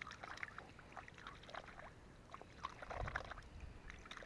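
Faint, irregular small splashes and drips of water in the shallows at a pond's edge, with a low rumble about three seconds in.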